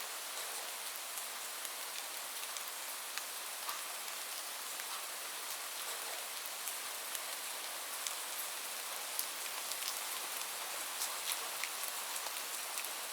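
Steady heavy rain falling, an even hiss with many distinct drops pattering on a surface.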